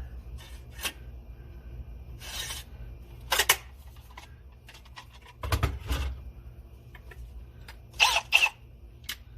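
Scattered clicks, rattles and short scrapes of drill bits and a drill being handled while the bit is changed for a bigger one, a few of the later sounds with a brief metallic squeak, over a low steady hum.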